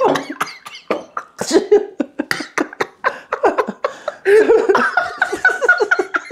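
Two men laughing hard in quick broken bursts, mixed with coughing.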